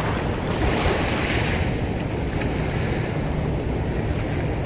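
Small surf washing onto a sandy beach, with wind rumbling on the microphone; the wash swells briefly about a second in.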